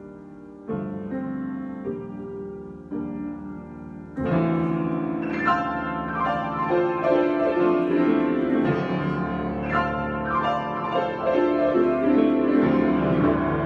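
Solo piano improvisation: a few soft chords struck about a second apart, then from about four seconds in louder, busier playing with many quick notes.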